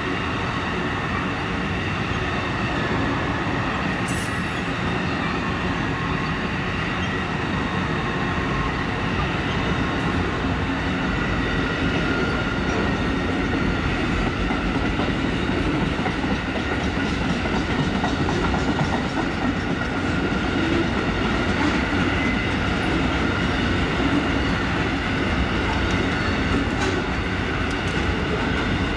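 Amtrak Auto Train rolling past: Superliner bilevel cars and then enclosed autorack vehicle carriers going by in a steady, continuous rumble of steel wheels on rail, with faint steady high tones over it.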